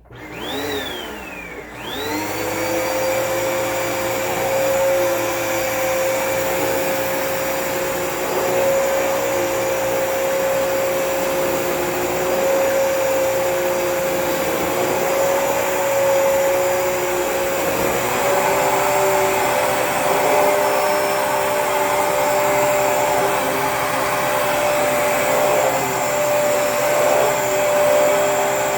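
Dirt Devil cyclonic vacuum cleaner switched on: its motor whine rises, dips and rises again within the first two seconds, then runs steadily. About two-thirds through the pitch steps up slightly, and near the end it is switched off and starts to wind down.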